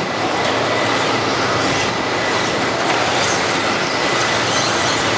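Several 1/10-scale electric two-wheel-drive RC buggies racing together on a dirt track, their motors whining up and down over a steady whirring hiss, with a thin steady high tone underneath.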